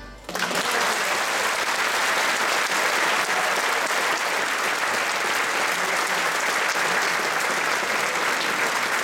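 A large audience applauding steadily, breaking out right as the final note ends.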